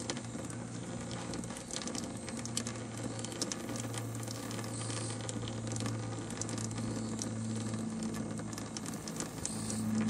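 Steady low electrical hum with a faint crackling hiss over it; the hum grows stronger about four seconds in.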